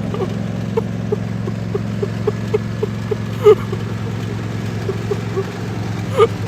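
Lawnmower engine running steadily with a low hum, over a light regular ticking about three to four times a second. Two brief higher sounds cut in, one about halfway through and one near the end.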